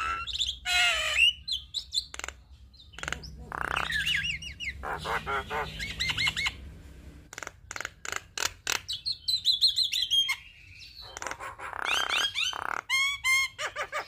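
Javan myna (jalak kebo) singing a long, varied chattering song: harsh squawks and rapid clicks mixed with rising and falling whistles and quick trills, broken by a few short pauses.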